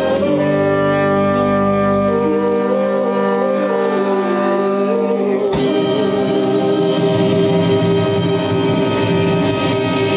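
Band of saxophones, trumpets and keyboard with a choir holding long sustained chords, with a singer's voice on top. About halfway through, a new chord comes in sharply and is held: the closing chord of the piece.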